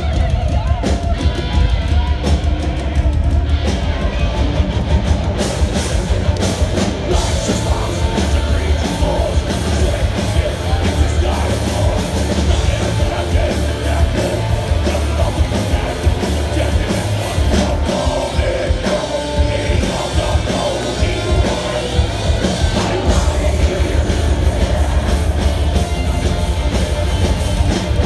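Thrash metal band playing live: distorted electric guitars, bass and pounding drums with vocals, loud and heavy in the bass as picked up by a phone microphone in the crowd.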